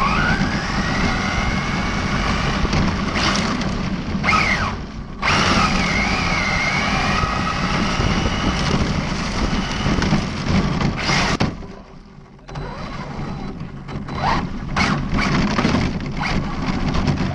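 ARRMA Felony 1/7-scale RC car running on gravel: its brushless electric motor whines, rising in pitch as the car speeds up, over a steady rush of tyre and wind noise. The sound cuts out briefly about five seconds in and falls much quieter for about a second near two-thirds of the way through.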